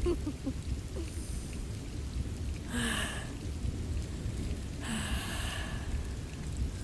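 Steady rain ambience with a low rumble underneath, and two short breathy exhalations about three and five seconds in.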